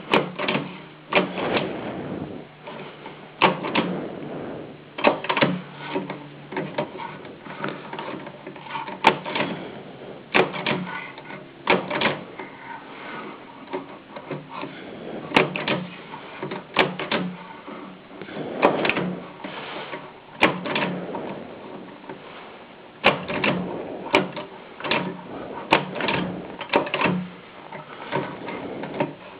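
A 1925 AEG Mignon Model 4 index typewriter being typed on slowly: sharp, irregular mechanical clacks, about one or two a second, sometimes a few in quick succession, as letters are struck one at a time.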